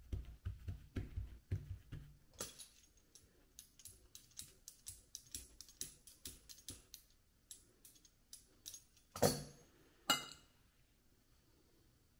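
Background music with a rhythmic percussion beat: low thuds at first, then light tambourine-like ticks that thin out after about seven seconds. Two louder clattering hits follow near the end.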